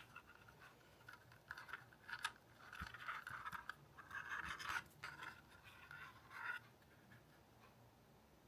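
Faint scratching and rubbing in short, irregular bouts that stop about six and a half seconds in.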